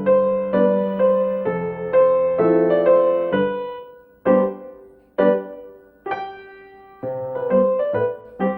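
Background piano music: gentle chords and single notes, thinning out to sparse notes with short pauses about halfway through before picking up again near the end.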